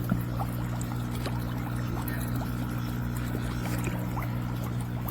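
KNQZE heated foot spa running with its bubble function on: a steady low electric hum from the pump with water bubbling and small pops over it. A single sharp tap sounds just after the start.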